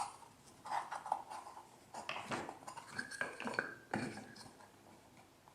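Scattered light knocks and clicks of wooden box pieces being turned over and fitted together by hand, dying away near the end.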